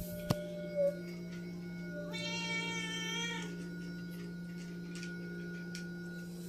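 A domestic cat meows once, a single drawn-out meow lasting just over a second, about two seconds in. There is a sharp click and a short knock in the first second, over a steady low hum.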